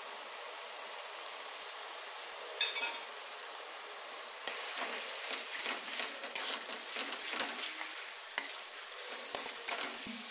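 Onion-tomato masala paste sizzling in oil in a kadai over a low gas flame; from about four seconds in, a spatula stirs and scrapes through it, with irregular scrapes and clicks against the pan.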